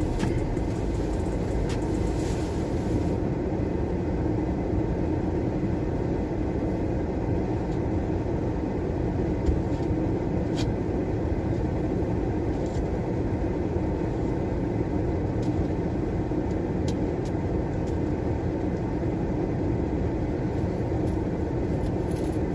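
A car idling as it warms up in the cold, a steady low drone with the heater running, broken by a few faint knocks and clicks.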